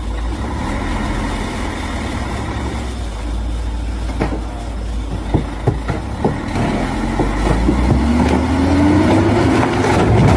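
Loaded log truck's engine running steadily as it crawls across a wooden log bridge. About four to seven seconds in, a run of sharp knocks and cracks comes from the bridge timbers under the weight. Near the end the engine note rises and the sound grows louder as the bridge gives way and the logs fall.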